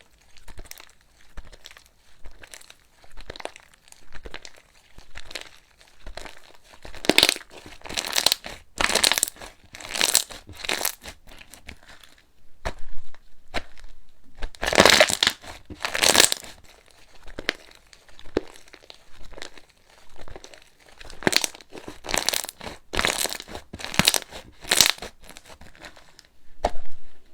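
Slime being squished and pressed, crackling and crunching in irregular bursts, loudest about seven to eleven seconds in, around fifteen seconds, and again after twenty-one seconds.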